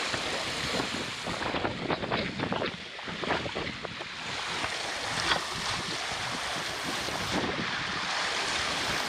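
Water rushing and splashing along the hull of a sailboat moving fast through waves in a fresh breeze, with wind buffeting the microphone.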